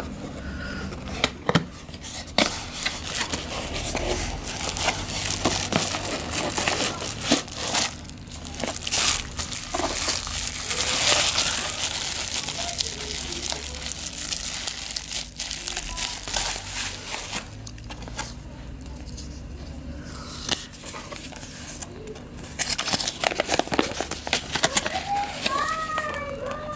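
Plastic bubble wrap crinkling and rustling as it is handled and unwrapped, along with cardboard box flaps being opened and a paper leaflet handled, with scattered sharp taps and crackles.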